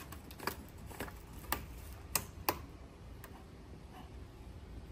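Five or six light, sharp clicks and taps, one about every half second over the first two and a half seconds, then faint room tone.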